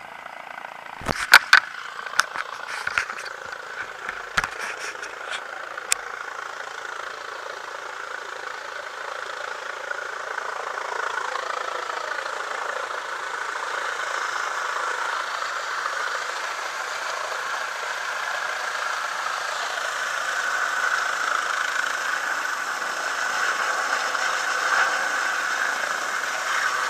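A few sharp knocks and clicks in the first seconds, then the steady noise of a helicopter's rotor and turbine, growing gradually louder as it comes in low over the landing zone.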